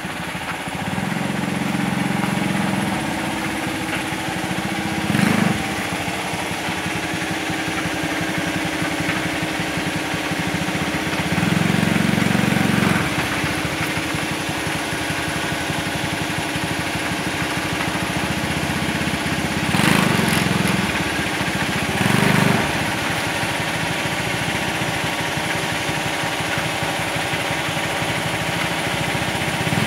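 Lifan 110cc single-cylinder four-stroke motorcycle engine in a homemade utility vehicle, running steadily at idle and revved up briefly a few times. A few short knocks are heard over it.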